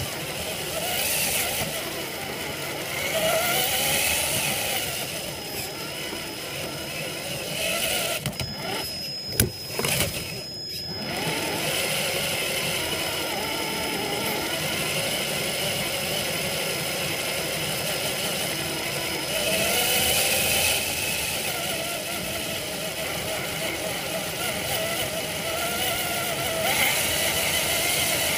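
Traxxas TRX-4 RC crawler driving over grass, picked up by a camera mounted on the truck: a steady noisy drivetrain sound with an electric motor whine that rises and falls with the throttle. Around nine to eleven seconds in, a sharp knock comes with the sound briefly cutting out.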